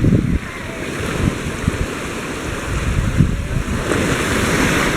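Ocean surf washing steadily, with gusts of wind buffeting the microphone.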